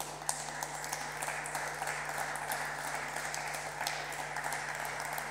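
Applause from the members of the chamber: many people clapping at a fairly steady level.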